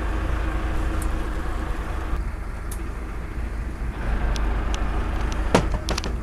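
A sport-fishing boat's engine running with a steady low rumble. A few sharp clicks come in the last two seconds, one much louder than the rest.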